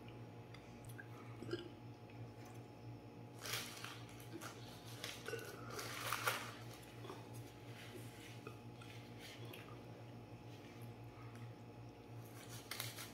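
Paper tissues rustling as they are handled, in two short bursts a few seconds apart, over a faint steady low hum.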